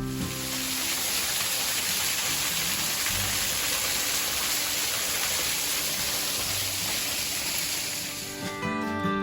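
Steady rushing hiss of a waterfall's falling water, cutting in suddenly and cutting off near the end.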